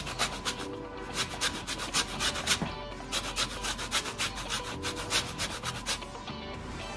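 Lemon rind rubbed back and forth on the fine holes of a stainless-steel box grater to take off the zest: a quick run of rasping strokes, several a second, with a short pause about three seconds in, stopping near the end.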